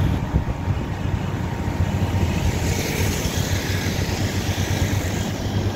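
A motor vehicle running along a road: a steady, low engine sound with road noise.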